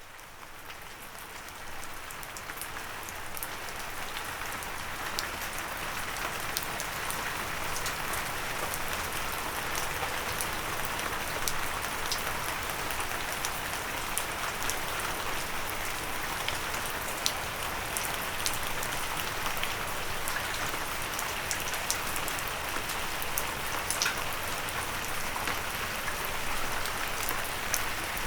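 Steady rain hitting a windowsill: a dense patter with scattered sharper drip ticks. It fades up from silence over the first few seconds, then holds even.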